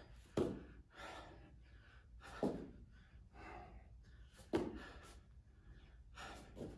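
A man breathing hard through a set of push-ups: short, sharp breaths in and out, about every second or two, the strongest about half a second, two and a half and four and a half seconds in.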